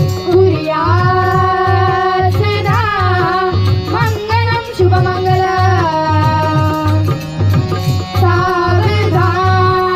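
A boy singing Marathi mangalashtak wedding verses in a high voice, holding long notes with gliding ornaments between them, over a steady drum beat.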